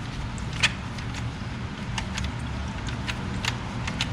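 Scattered light clicks and clinks of hand tools and engine parts being handled, over a steady low hum.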